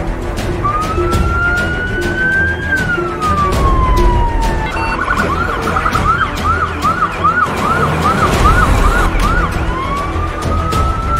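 Ambulance siren: a slow wail that rises and then falls, then a faster yelp of about two sweeps a second, then rising into the wail again, over a low rumble.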